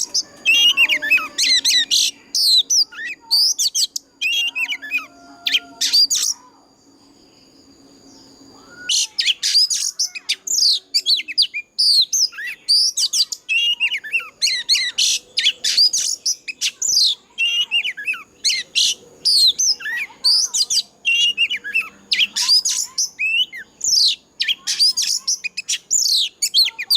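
Oriental magpie-robin singing a fast, varied run of clear whistles, slurred notes and chirps, breaking off briefly about a quarter of the way through and then singing without pause.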